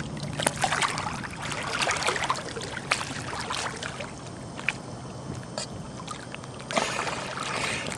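Water splashing and sloshing as a snorkeler wades and swims in lake water, with irregular sharp splashes and a heavier burst of splashing near the end.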